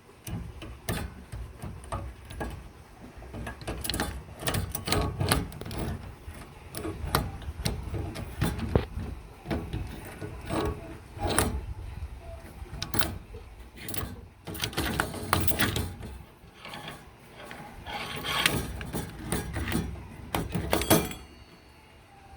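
Slide hammer worked on a car exhaust's inner silencer (baffle): irregular metal clanks and knocks in quick clusters, with scraping between strokes.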